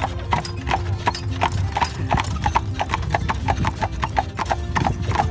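Hooves of a pair of horses pulling a carriage clip-clopping on a paved road, in a quick, even rhythm of about four to five strikes a second, with a steady low rumble underneath.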